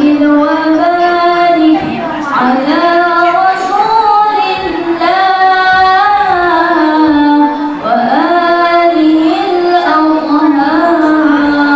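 A young woman's voice reciting the Quran in the melodic tilawah style, drawing out long, wavering phrases that glide up and down in pitch. She breaks briefly for breath about two seconds in and again about eight seconds in.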